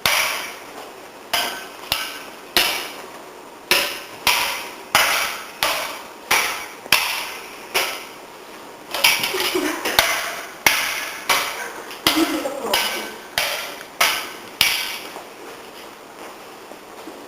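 Metal kitchen utensils clashing against each other over and over, sharp ringing clanks about once or twice a second in an uneven rhythm.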